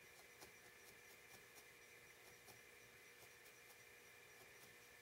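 Near silence with faint, irregular little clicks: a felting needle repeatedly stabbing into wool to set the eye colour.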